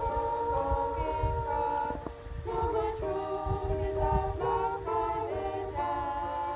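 Small women's choir of five voices singing a cappella in harmony, in held notes that change in short phrases.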